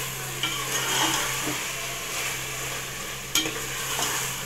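Metal spoon stirring and scraping bitter gourd and mutton in a steel pot while they fry in oil, with a steady sizzle and a sharp clink of the spoon on the pot a little over three seconds in.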